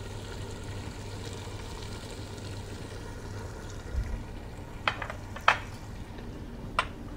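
Tomato and onion masala simmering in a stainless steel pot: a steady sizzling hiss from the bubbling sauce. A few short sharp clicks come in the second half.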